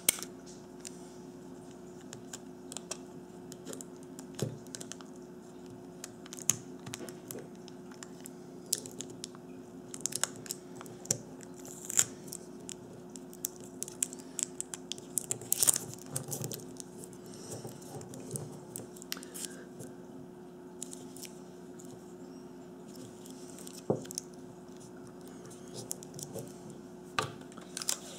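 Scotch tape being handled, torn and pressed onto wires on a pack of AA cells: scattered crinkles and clicks over a steady low hum.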